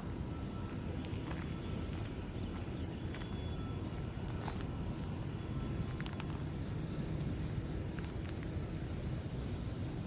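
Insects in the brush keeping up a steady high-pitched trill, with a low rumble underneath and a few faint clicks.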